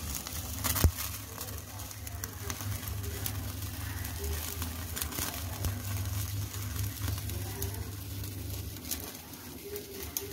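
Chicken pieces sizzling faintly on a wire grill rack over a gas burner flame, over a low steady hum. Pigeons coo softly now and then in the background, and a sharp click sounds about a second in.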